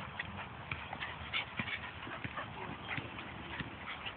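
A Boston terrier and another dog play-fighting on wood-chip ground: quick scuffling footsteps and a few short dog vocal sounds.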